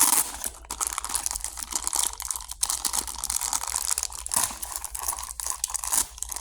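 Beyblade toy packaging being torn open and crinkled by hand: a busy crackle of tearing and crumpling with many small clicks, which stops near the end.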